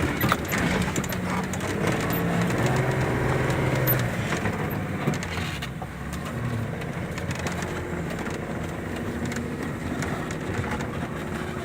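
Land Rover Defender engine running under load as it drives through a dip, its note shifting in pitch over the first few seconds and then easing to a steadier, slightly quieter run.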